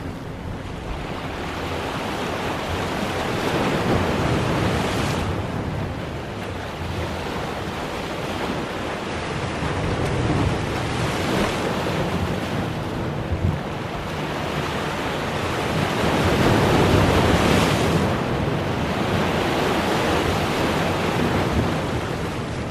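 Sea waves breaking and washing over shoreline boulders: a steady rush that swells and eases every few seconds, loudest about four seconds in and again near sixteen to eighteen seconds. Wind buffets the microphone with a low rumble underneath.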